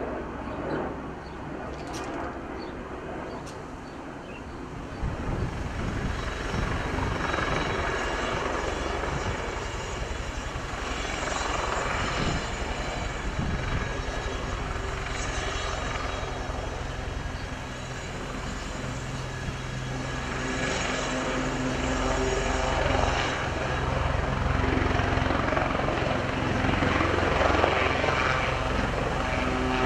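Westland Lynx twin-turboshaft helicopter coming in low and hovering: a steady turbine whine over the beat of the rotor blades. It grows louder from about five seconds in and is loudest near the end.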